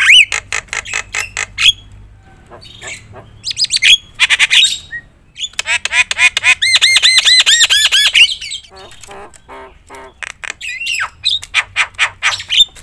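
Javan myna (jalak kebo) singing loudly in full song, a fast medley of sharp clicks, harsh squawks and whistles with phrases imitated from other birds. In the middle comes a rapid run of repeated whistled notes, about five a second.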